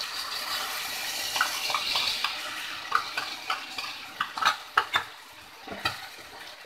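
Food sizzling in a hot metal pan as an arrowroot-and-soy-sauce slurry is poured in to thicken the sauce. A metal spoon stirs the soya chunks and vegetables, clinking and scraping against the pan again and again from about a second and a half in.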